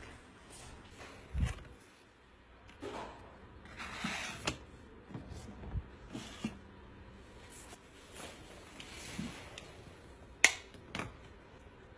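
Light handling noises of small objects being picked up and set down: scattered taps, rustles and clicks, with a low thump about a second and a half in and a sharp click about ten and a half seconds in.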